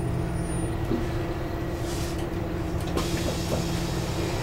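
Scania K320UB city bus's nine-litre five-cylinder diesel engine and ZF Ecomat automatic gearbox running under way, heard from inside the passenger cabin. It is a steady drone that holds one pitch throughout.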